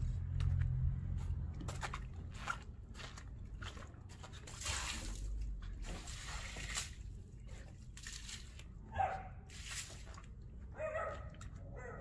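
Stiff deck brush scrubbing a wet concrete patio: uneven swishing strokes of bristles over wet, soapy concrete.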